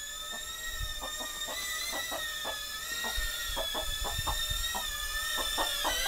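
iFlight Defender 16 sub-250 g cinewhoop's motors and 1.6-inch propellers whining in flight: a steady high whine of several tones that wavers slightly with throttle and grows louder as the drone comes closer. A chicken clucks in short notes over it.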